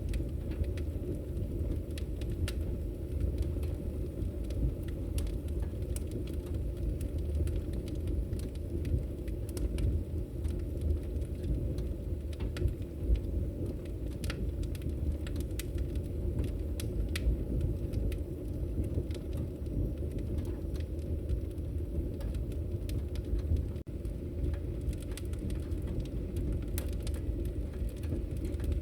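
Wood logs burning in a fireplace: a steady low rumble of the fire with scattered sharp crackles and pops throughout.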